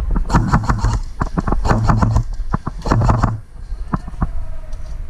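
Airsoft guns firing in rapid bursts: three runs of fast, sharp clicks, each under a second long, over a low thudding, with weaker scattered clicks after them.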